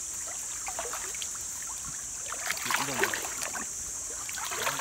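Water sloshing and splashing as people wade through a shallow, muddy stream, with a steady high-pitched hiss in the background.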